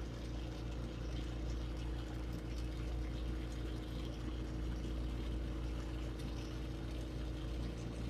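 Glassblowing bench torch burning with a steady rushing hiss, over a low steady hum.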